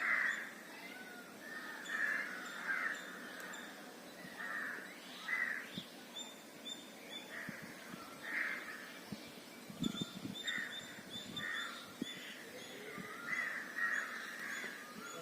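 Crows cawing again and again, a call every second or two, over a thin string of quick, high chirps from smaller birds.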